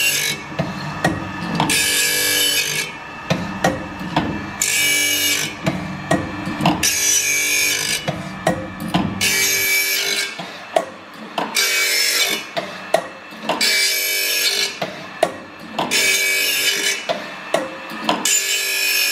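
Carbide saw-blade sharpening machine grinding a carbide-tipped circular saw blade tooth after tooth: a hissing grind of the wheel against each tooth about every two seconds. Between grinds the machine's mechanism clicks, over the steady hum of the grinding motor. This is a heavy regrind of a blade with over half its carbide tips chipped.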